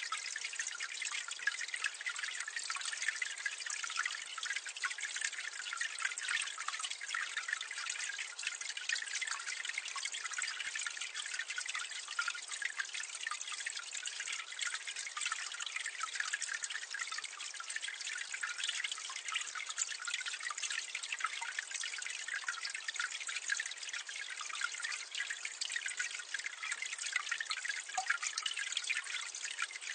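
Water falling and splashing steadily into a drain, heard from medium distance: a continuous hissing splash full of small drips, with no deep rumble.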